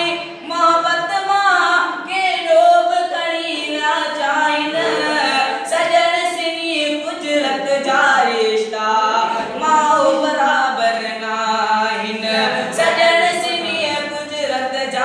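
A student singing unaccompanied, one continuous melodic vocal line.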